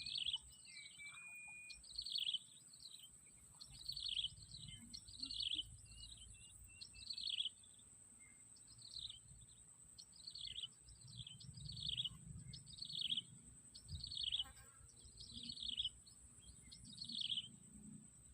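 A bird calling over and over in short, high, downward-sweeping chirps, about one a second, over a steady thin high whine.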